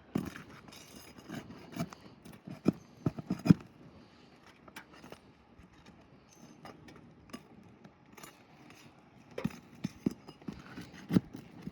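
Hand tools working under asphalt roof shingles: irregular sharp knocks, clicks and scraping as the shingles are unsealed and their nails pried loose. They come in two bunches, in the first few seconds and again about nine seconds in.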